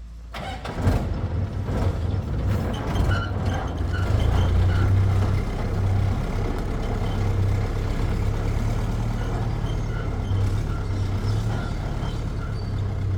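Heavy diesel engine running steadily with a low rumble, with a few knocks in the first couple of seconds.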